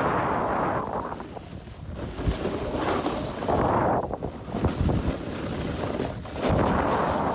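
Snowboard edges carving on groomed snow: a scraping hiss that swells with each turn, about every three seconds, with wind buffeting the microphone.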